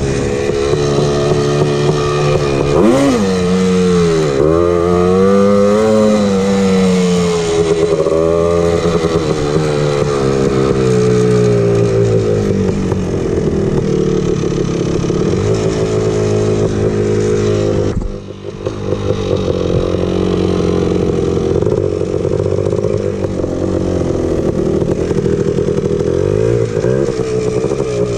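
Honda TRX250R ATV's two-stroke single-cylinder engine running under throttle, its pitch rising and falling as the rider works the throttle. About eighteen seconds in, the throttle closes for a moment and the engine picks up again.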